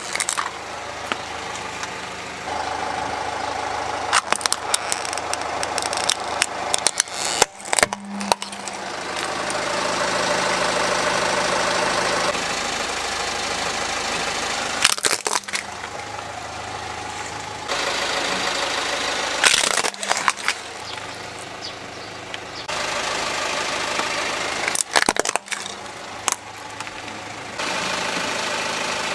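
Car engine idling as its tyre rolls slowly over small plastic toy trucks, with sharp cracks and crunches of the plastic breaking several times.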